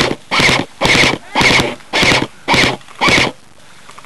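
Airsoft rifle fired in seven short bursts, about two bursts a second, each a brief rattle.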